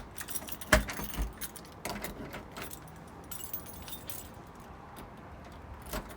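A bunch of keys jangling and clicking as a key is worked in a rusty door lock freshly sprayed with WD-40, the key now going in easily. A sharp click about three quarters of a second in is the loudest, with scattered lighter clicks after it.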